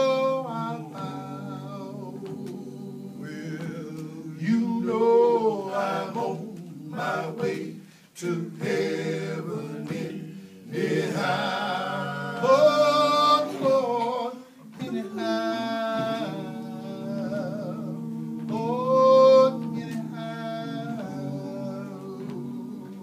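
Six-man male gospel group singing a cappella in close harmony. A lead voice sings phrases over low, sustained chords held by the other voices.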